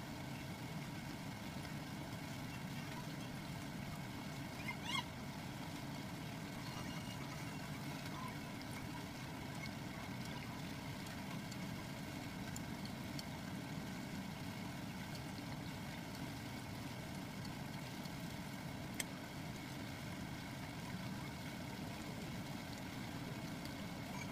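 Sliced shallots deep-frying in a pot of oil at a vigorous boil, a steady bubbling sizzle. Two light clicks, about five seconds in and again near the end.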